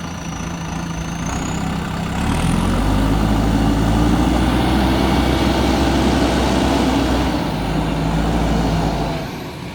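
JCB 3DX backhoe loader's diesel engine running. It revs up about two seconds in, holds there, and drops back to a lower speed near the end.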